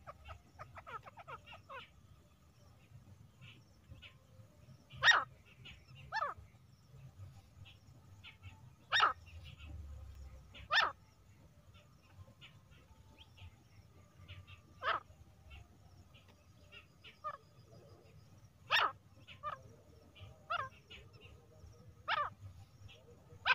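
Female grey francolin (teetar) calling: sharp, short single notes repeated irregularly, about ten of them, one to four seconds apart. Quicker, fainter notes come near the start and between them.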